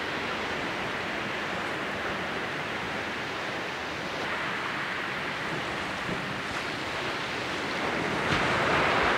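Sea surf washing on the shore, a steady hiss of waves that swells louder near the end.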